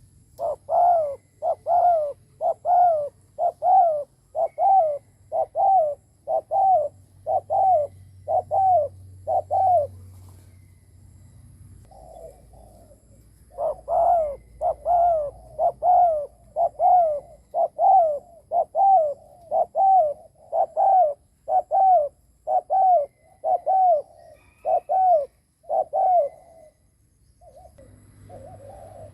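A spotted dove giving its bowing coo. It is a rapid run of short, hooked coo notes about two a second, in two long bouts with a break of a few seconds near the middle.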